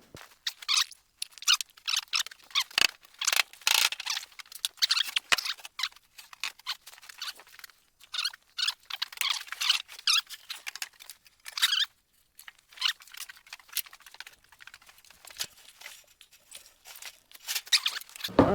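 Irregular high-pitched squeaking and scratchy rustling of a material being handled, in short bursts with gaps, plus two sharp clicks a few seconds in.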